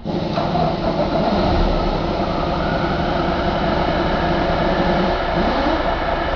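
2015 Cummins ISX15 inline-six diesel engine running at a steady speed on a test stand.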